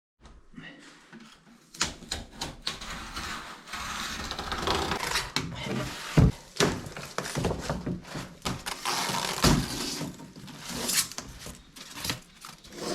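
Irregular knocks and thunks with scraping and rubbing between them, as of objects being handled and set down. The loudest knock comes about six seconds in.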